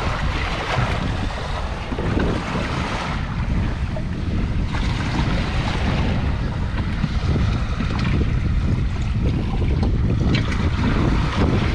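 Wind buffeting the microphone over moving water, a steady rushing noise with a few faint ticks.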